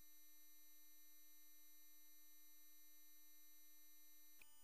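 Near silence: a faint, steady electronic hum made of several fixed tones, with a small click near the end.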